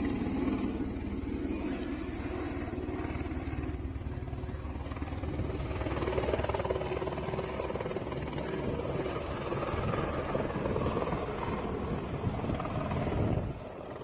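Helicopter flying low, its rotor and engine giving a steady rapid chop over a broad rushing noise. The sound cuts off suddenly near the end.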